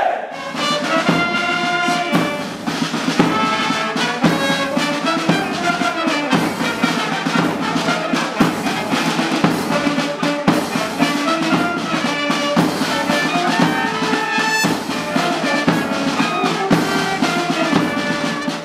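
Military brass band playing a march, with drums keeping a steady beat.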